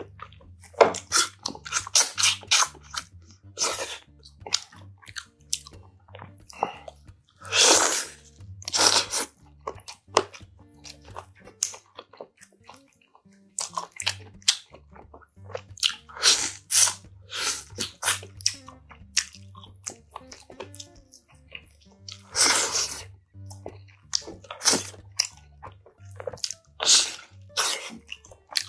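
Close-miked eating of braised spicy pork backbone: irregular wet chewing and biting as meat is gnawed off the bones, with a couple of longer noisy bursts at about eight and twenty-two seconds in.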